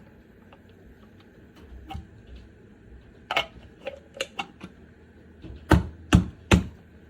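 Handling noise: a series of sharp clicks and knocks, irregularly spaced, with three louder knocks close together near the end.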